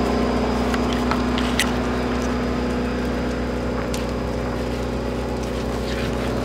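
Grass and brush fire burning with a few sharp crackles and pops, over a steady engine hum from a machine running nearby.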